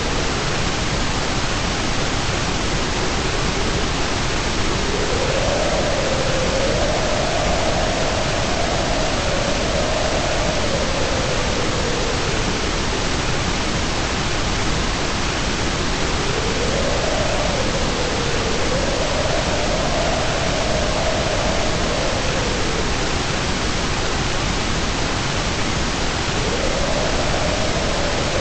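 Continuous white noise, a steady even hiss. Inside it, a faint mid-pitched tone swells, wavers up and down and fades, returning about every eleven seconds.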